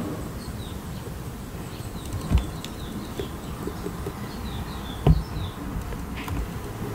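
Two dull knocks of a metal coffee can being handled on the table, the louder one about five seconds in, over a steady low hum with faint high chirps.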